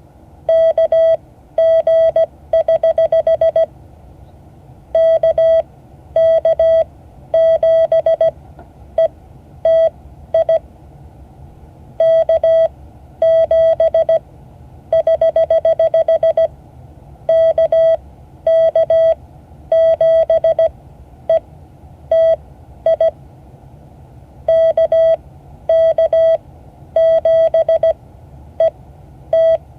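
Morse code: a single steady beep keyed on and off in dots and dashes. It is the reply to a CQ call, an answering station sending its call sign after DE.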